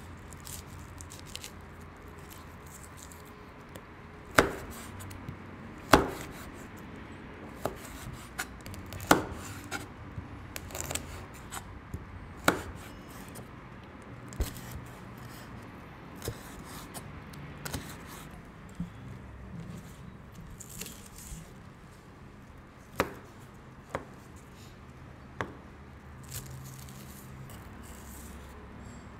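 A kitchen knife slicing red chilli and spring onion on a wooden cutting board: irregular sharp knocks of the blade meeting the board, a handful of them much louder than the rest.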